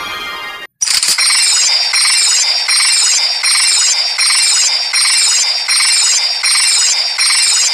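Electronic belt sound effect from a custom Kickhopper Zecter Raise Buckle transformation-belt simulation: a sustained tone cuts off under a second in, then a high, screechy standby loop repeats about every 0.7 s, the belt waiting after "Set".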